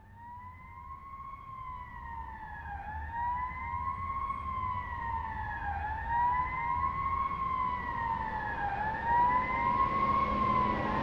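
Emergency vehicle siren wailing, its pitch rising and falling slowly about once every three seconds, growing steadily louder over a low rumble.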